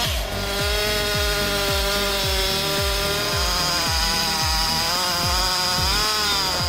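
Engine-driven saw rig cutting a log into planks, its engine whine dipping under load as the cut starts and wavering near the end. A steady music beat thumps about twice a second underneath.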